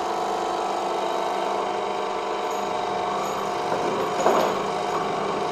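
Hydraulic press power unit running with a steady hum while its ram begins pressing a cylinder liner into an engine block.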